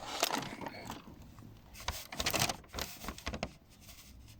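Slack camshaft chain under the removed valve cover of an Audi 4.2 ABZ V8 being moved by hand, clacking irregularly against its sprockets and guides. The chain is loose, a candidate for the engine's knock.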